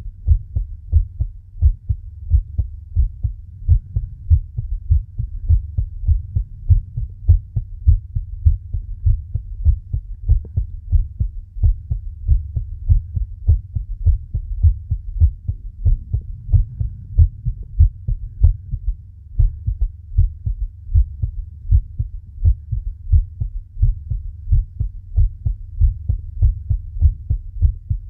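Human heartbeat: low, muffled thumps repeating quickly and evenly, several a second.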